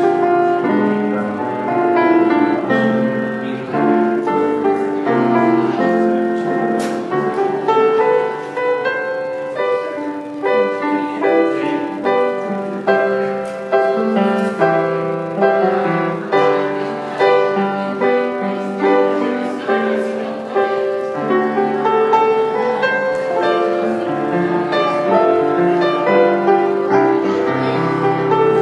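Solo piano playing a flowing piece of melody and chords, with notes ringing over one another.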